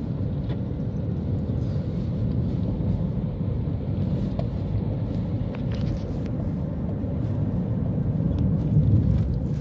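Steady low rumble of a car driving at an even speed, heard from inside the cabin: engine and tyre road noise.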